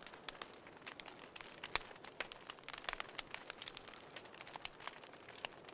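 Faint crackling of a fire: irregular sharp pops and snaps, several a second.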